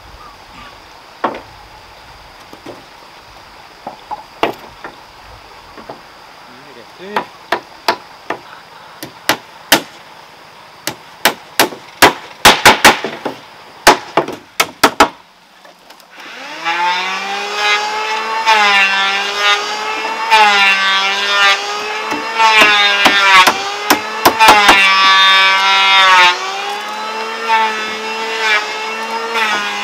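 Hammer nailing down wooden roof boards: single knocks at first, then quick runs of blows. About halfway, a louder engine starts running and revving, its pitch rising and falling over and over.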